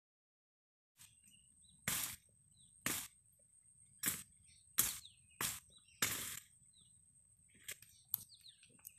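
Crunching and crackling through dry leaves and brush, about six sharp crunches roughly a second apart, then a couple of softer ones near the end. Faint bird chirps and a steady high whine sound underneath.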